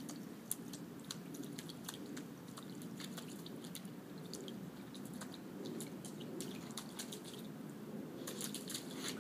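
Three-month-old Bernese Mountain Dog puppy nosing and mouthing at a shallow puddle on asphalt, giving irregular small wet clicks and splashes that bunch together near the end. A steady low background hum runs underneath.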